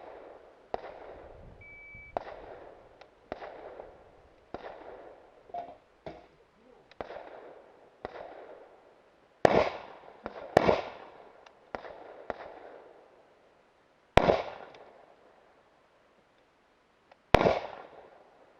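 Rifle shots fired at an irregular pace in an IPSC practical rifle stage, about a dozen in all, each followed by an echoing tail. The last four are much louder than the rest. A short beep sounds near the start.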